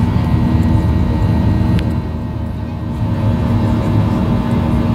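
Cabin noise of a Boeing 737-800 climbing out after takeoff: the steady low rumble of its CFM56-7B turbofan engines, with steady whining tones over it, easing slightly about two seconds in.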